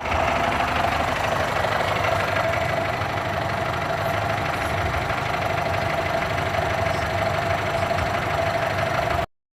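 An engine running steadily, with a constant whine over a low rumble; it cuts off suddenly near the end.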